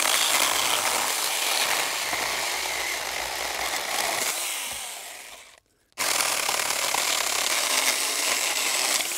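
Saker mini cordless electric chainsaw cutting through dry branch wood, the chain running under load. It dies away and stops briefly about five and a half seconds in, then starts straight back into a second cut.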